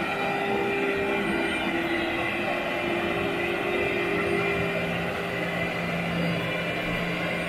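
Vacuum cleaner running steadily on carpet, its motor giving a constant whine.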